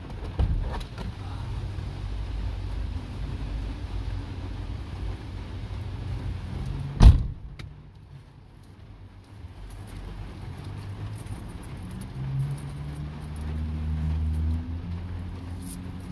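Low vehicle rumble heard from inside a vehicle cab, with one sharp knock about seven seconds in. After the knock the rumble drops away briefly, then returns, and a deeper droning tone swells near the end.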